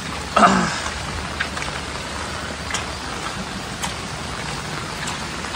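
Steady rushing noise of rain and wind on the microphone while walking a wet trail, with a low rumble underneath and a few scattered light taps. A short voice sound comes about half a second in.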